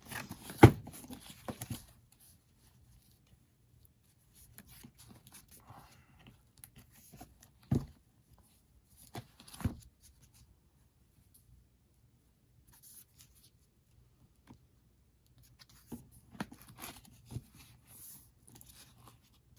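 Intermittent handling of paper and book materials: rustling, light taps and sharp knocks with quiet gaps between. A sharp knock comes near the start and another about eight seconds in.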